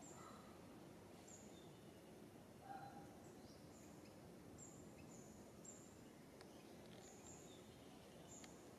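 Near silence: faint outdoor ambience with short, very high chirps repeating every second or so, and one brief lower call about three seconds in.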